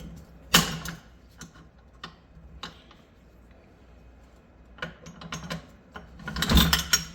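Metal-on-metal clicks and clatter of SKS rifle parts as the bolt and bolt carrier are worked into the receiver: one sharp clack about half a second in, a few light ticks, then a quick run of clicks and scraping near the end.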